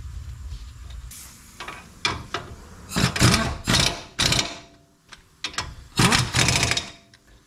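Air ratchet running in several short bursts, then two longer ones, driving in the brake caliper bracket bolts.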